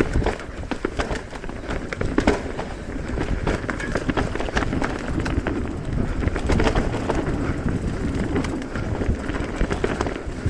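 Mountain bike riding over a rough dirt trail: a steady rumble of tyres on the ground, broken by many quick clicks and knocks as the bike rattles over roots and stones.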